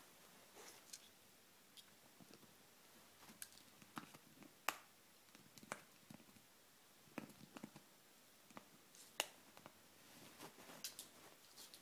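Dog gnawing a chew ball, irregular soft clicks and sharper snaps of teeth on it, the two loudest snaps about five and nine seconds in.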